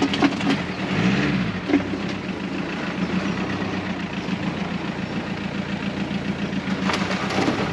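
Volkswagen Transporter van's engine running at low revs as the van creeps slowly along a dirt track, a steady low drone with an even pulse.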